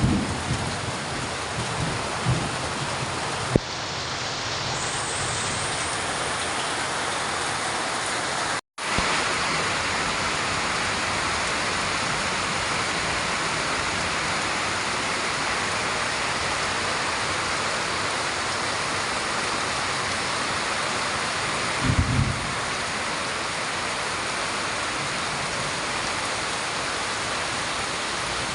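Heavy rain pouring down steadily, a dense even hiss. Short low rumbles break in near the start and again about two-thirds of the way through.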